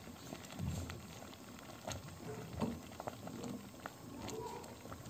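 Thick fava-bean and split-pea purée bubbling in a steel pot, with irregular small pops and a few soft low plops as bubbles burst through the thick mash.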